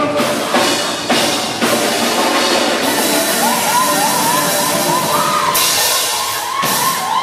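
Band music led by a drum kit, with sharp drum and cymbal hits; a high wavering melody comes in about halfway.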